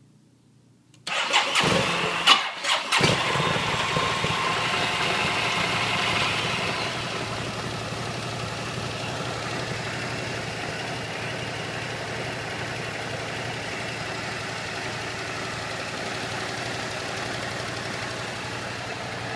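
Aprilia Mana 850 V-twin motorcycle engine being started: about a second in the starter cranks with a few sharp knocks, the engine catches within two seconds and runs at a raised idle, then settles to a steady lower idle about six seconds in.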